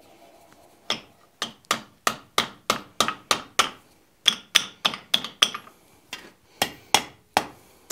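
Hand hammer striking a hot iron ring shaped over a cone mandrel on the anvil: a quick run of about nine blows, a short pause about three and a half seconds in, five more, then a few slower blows.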